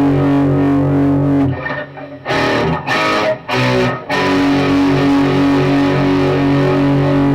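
Electric guitar with Fleor Alnico 5 two-wire humbucker pickups, played through distortion. A held chord rings, breaks off about a second and a half in for three short chord stabs, then another chord is held until near the end.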